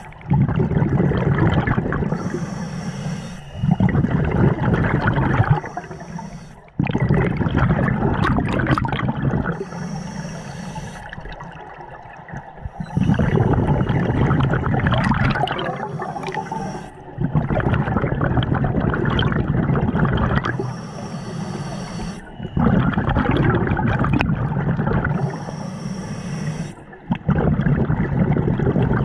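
Scuba diver breathing through a regulator underwater: a hissing inhale, then a long rush of exhaled bubbles, the cycle repeating every few seconds.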